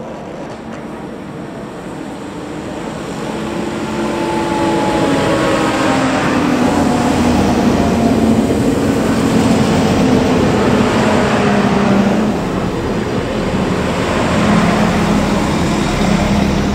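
An Alstom Coradia LINT diesel multiple unit runs close past, its engine drone mixed with the rush of wheels on rail. It grows louder from about three seconds in and stays loud to the end.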